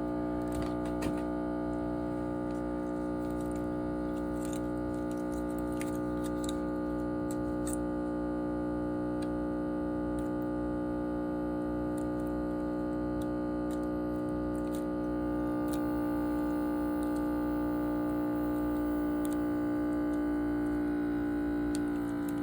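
Background music: a steady held chord of sustained electronic tones with a few faint clicks, cutting off suddenly at the end.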